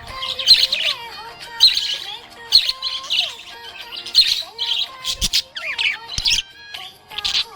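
Budgerigar chirping and squawking in short, rapid bursts, roughly one or two a second.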